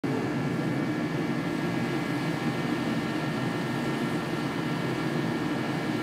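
Craftsman riding mower's 15.5 HP Kohler Command engine running steadily at idle.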